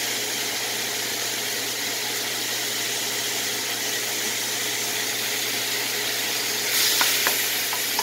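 Food sizzling steadily in a hot pan on the stove. The sizzle swells briefly about seven seconds in, with a few light clicks.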